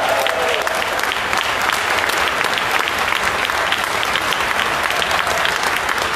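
Crowd applauding steadily: a dense, even clatter of many hands clapping, with a voice cheering briefly at the very start.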